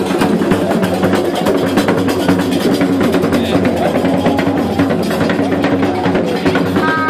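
Live festival percussion music: drums beaten in a fast, dense rhythm of sharp strokes. A high held tone of several pitches comes in near the end.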